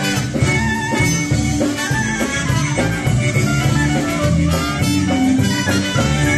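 Live polka band playing a number with a steady pulsing bass beat.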